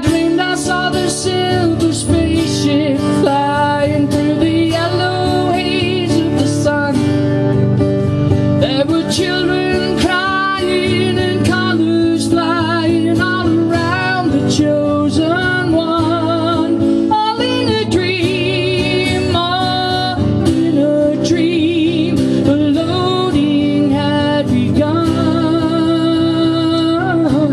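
Live solo acoustic guitar playing continuously, with a wavering, held melody line over the chords.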